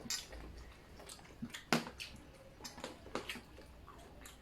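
Close-miked eating sounds: chewing with scattered wet smacks and small clicks, the sharpest about a second and a half in.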